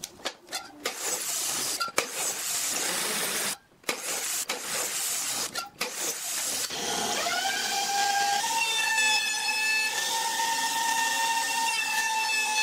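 A miter saw cutting pine boards in several short cuts. Then a router in a homemade router table spins up with a quickly rising whine and runs at a steady high whine while it shapes the edge of a pine strip.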